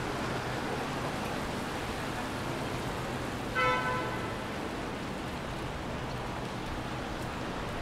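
Steady hiss of rain and traffic on a wet city street, with a short car-horn toot about three and a half seconds in.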